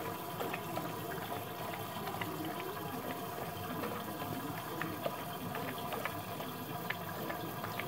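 Labrador lapping liquid from a stainless steel bowl: steady wet lapping with small irregular clicks.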